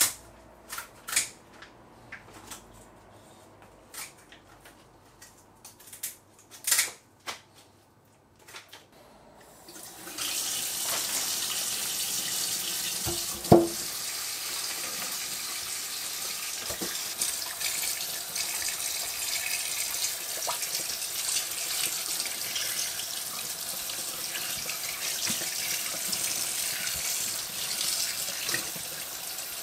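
Kitchen tap running into a stainless-steel sink: a steady rush of water that starts about a third of the way in and runs on, with one sharp knock in the middle. Before the water starts there are scattered light rustles and taps from handling raw chicken carcasses on butcher paper.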